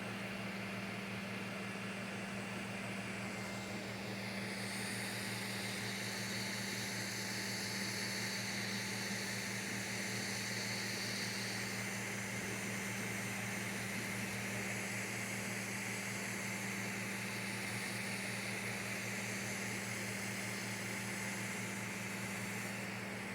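Creality CR-M4 3D printer running: a steady mechanical hum and fan hiss.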